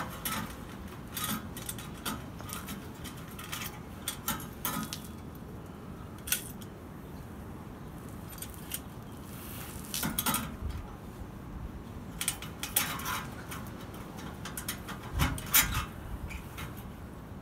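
Irregular metal clinks and scrapes as a chrome exhaust tip is worked by hand onto a pickup truck's tailpipe, with a heavier knock near the end.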